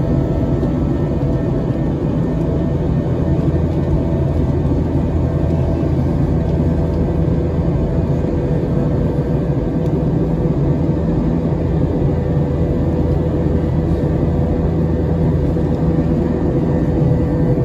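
Jet airliner cabin noise during the climb after takeoff: the engines and rushing air make a steady low rumble with a faint steady hum above it.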